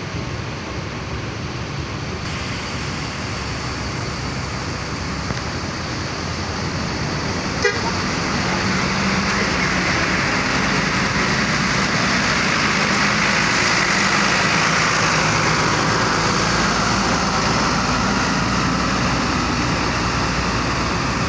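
Diesel engine of a Hino tour coach running as the coach moves slowly past at close range, growing louder over the first half and then holding steady. A single short click about eight seconds in.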